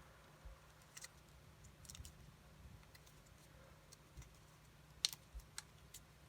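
Faint, scattered crinkles and clicks of a sheet of origami paper being handled and creased by hand, the loudest about five seconds in.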